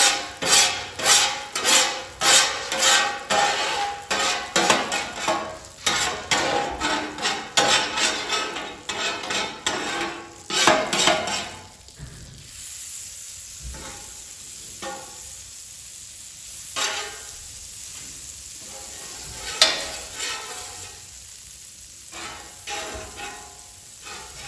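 Metal spatula scraping back and forth across a Blackstone steel flat-top griddle, spreading butter in quick strokes about two a second. About twelve seconds in the scraping stops and the butter sizzles steadily on the hot griddle, with an occasional single scrape.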